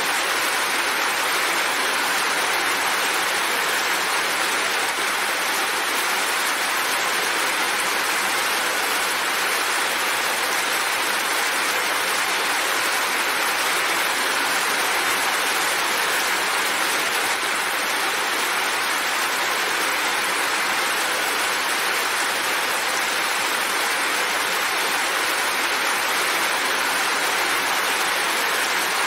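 Steady rain, an even hiss with no separate drops standing out.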